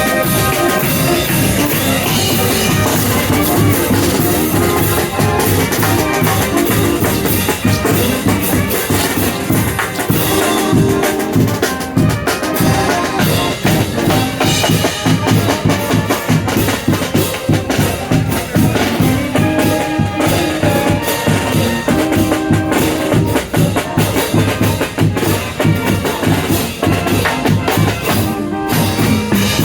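Live band music with a drum kit keeping a busy, steady beat of bass drum and snare hits under pitched instrument lines.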